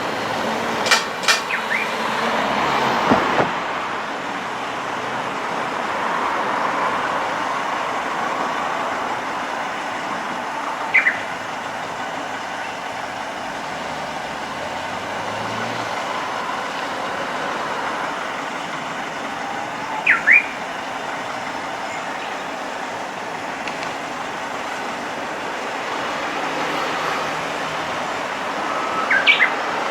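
Steady road-traffic noise beside the crossing, with one knock about three seconds in. Brief high chirps come at roughly ten-second intervals, twice early on and then near 11, 20 and 29 seconds.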